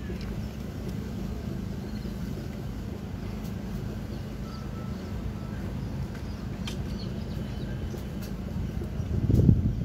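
Steady low outdoor rumble with a few faint clicks, swelling louder near the end.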